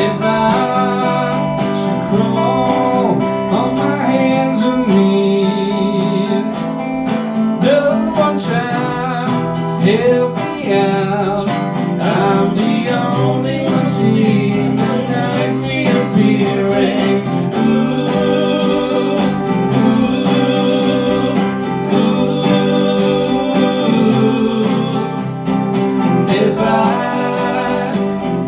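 Live band music led by guitars: strummed chords under a melody line that bends in pitch, with no words sung.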